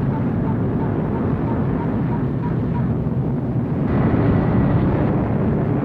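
Outdoor ambience captured through an apartment window, filtered and effected in real time into a dense, steady low rumble. A faint row of pips, about three a second, fades out about three seconds in, and the sound swells slightly near the end.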